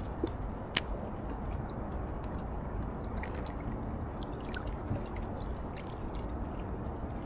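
River water lapping and trickling among the rocks of a riprap bank, over a steady low rumble, with scattered small ticks and one sharp click just under a second in.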